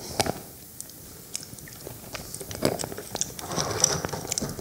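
Scattered small clicks and soft rustling close to a lectern microphone, over faint room tone.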